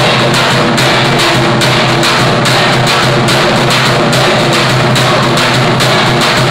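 Folk drumming on a large double-headed drum, beaten loudly in an even rhythm of about two to three strokes a second over a steady low droning tone.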